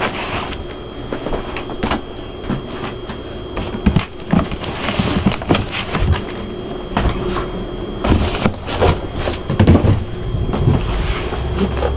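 Cardboard box and packing being opened and handled: irregular rustling and scraping with many short knocks and thumps.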